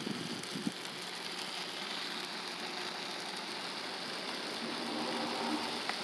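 Bird seed pouring from a bag onto a wooden birdhouse: a steady rush of small seeds spilling over the wood and into its entrance hole.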